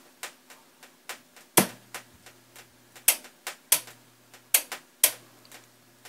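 Late-1970s Pioneer stereo receiver, powered up, giving a faint low mains hum that comes and goes. It is broken by irregular sharp clicks, a few of them loud, as the front-panel knobs are worked.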